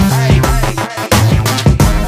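Background electronic music with a steady drum beat over a bass line, breaking off briefly about halfway.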